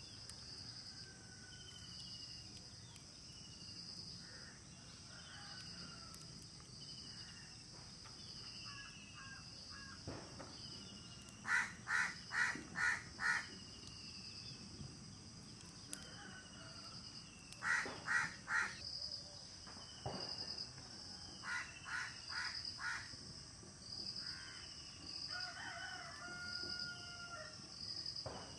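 Rooster crowing three times in the middle stretch, each crow broken into four or five short notes, over steady pulsing insect chirps and faint short whistled calls of small birds.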